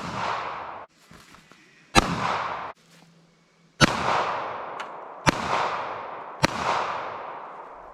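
Five .380 pistol shots, spaced one to two seconds apart, each a sharp crack followed by a long fading echo. The first two echoes cut off abruptly.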